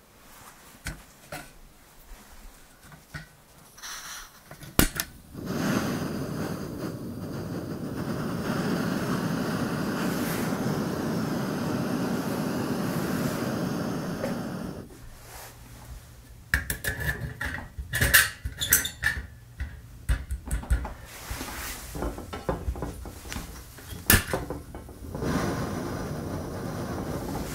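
Portable gas cartridge stove burner: a sharp click about five seconds in, then a steady gas hiss for about ten seconds that cuts off sharply as the valve is turned. After it come a run of sharp clicks and knocks from handling the stove, and a softer steady hiss near the end.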